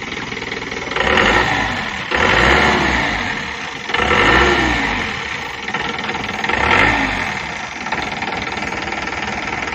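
A Mahindra minibus's diesel engine idling, revved four times while standing, each rev climbing and falling back, then settling back to a steady idle for the last couple of seconds.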